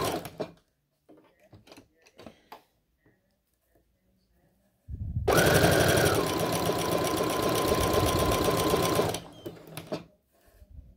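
Domestic electric sewing machine with a walking foot, sewing a lightning-bolt stretch stitch on a knit hem. It stops just after the start and pauses for about four seconds with a few faint clicks of handling. It then runs again for about four seconds, its motor whine stepping down to a lower note after the first second, and stops.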